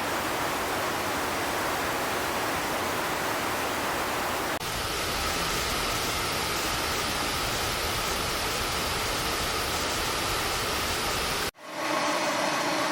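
Steady rush of flowing floodwater, cut between clips: the sound changes abruptly about four and a half seconds in, and again near the end, where a steady hum joins it.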